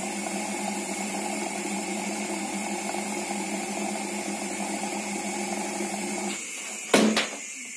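RO water purifier's booster pump running with a steady hum, cutting off about six seconds in; a sharp knock follows about a second later.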